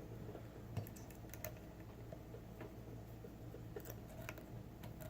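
Faint, irregular small metallic clicks and ticks of a lock pick and tension wrench working in the keyway of an old American Lock padlock.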